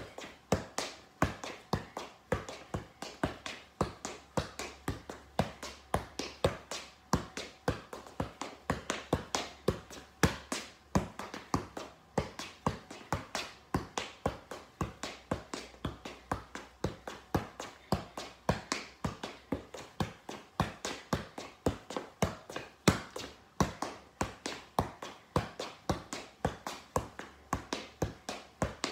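Soccer ball being juggled with the feet and knees: a steady, even run of thumps, about three a second, each touch popping the ball back up.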